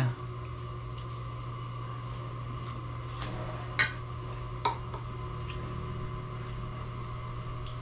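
Steady low hum with two short, sharp clinks a little under a second apart near the middle.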